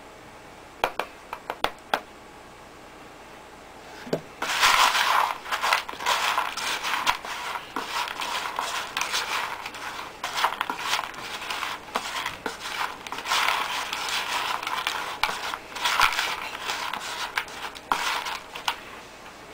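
Fine gravel being stirred by hand through gum arabic powder in a plastic bait box. The grains crunch and rattle against each other and the box continuously from about four seconds in, after a few light clicks.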